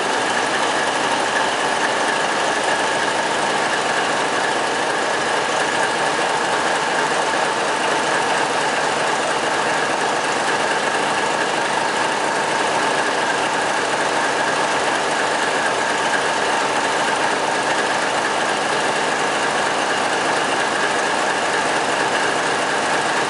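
Large turbocharged ABC V12 stationary engine running steadily on its factory test bench: an even, unbroken engine drone with a steady high-pitched whine over it.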